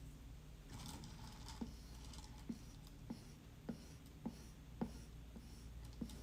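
Trimming tool scraping leather-hard clay on a potter's wheel, faint, with a short scratchy scrape about a second in and then a regular light tick roughly every 0.6 seconds.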